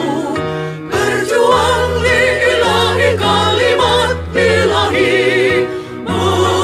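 Women's choir singing a march-style anthem in phrases, voices held with vibrato over low sustained accompaniment notes that change step by step.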